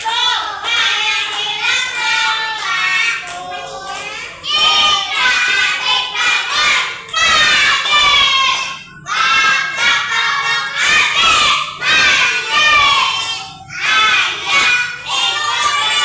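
A group of young children's voices shouting and chanting loudly together in phrases, with short breaks between them.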